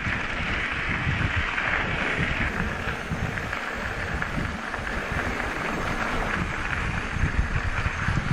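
Wind rushing over the microphone of a bicycle rolling along a dirt track, over a steady rumble of its tyres on the dirt and gravel.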